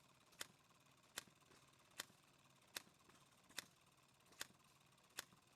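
A small stationary engine exhausting through a rifle-barrel exhaust attachment, giving faint, sharp, evenly spaced pops about every 0.8 seconds over a low hum.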